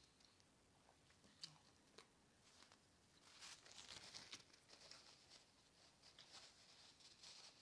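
Faint chewing and lip-smacking of a person eating a bacon cheeseburger: scattered soft mouth clicks, thickest around the middle.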